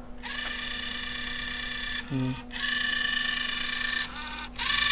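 Sony TC-K561S cassette deck's tape transport making a mechanical buzzing noise as its motor drives the cogwheel mechanism while that mechanism sits out of its proper position. The noise stops briefly about two seconds in, with a short low sound in the gap, and dips again near the end before it comes back louder.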